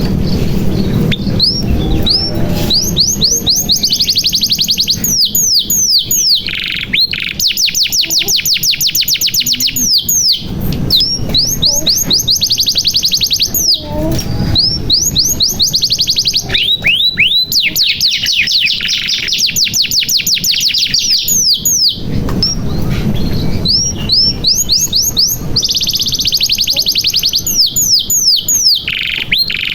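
Domestic canary singing a long song of rolling trills, each phrase a rapid run of repeated sweeping notes, one phrase following another with brief breaks.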